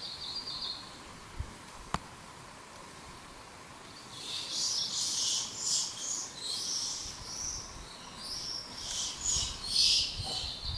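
Small birds chirping and singing, a dense run of high broken calls starting about four seconds in, after one brief chirp at the start. A single sharp click about two seconds in.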